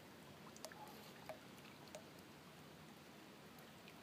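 Near silence: faint outdoor background with a few soft, short clicks.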